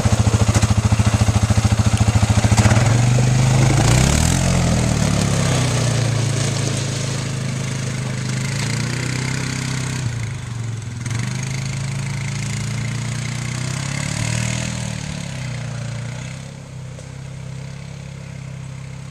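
A vehicle engine idling close by, revved up and back down about four seconds in and again near fifteen seconds, then a little quieter near the end.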